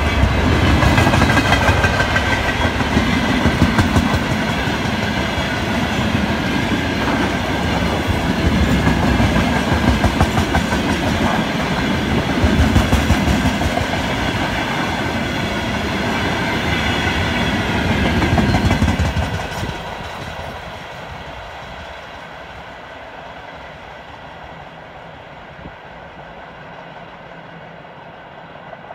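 Freight train of tank wagons, hauled by electric locomotives, passing close by: wheels clattering in a steady rhythm over the rails. About 19 seconds in, the clatter drops off sharply as the last wagon goes by, leaving a fainter rumble that fades into the distance.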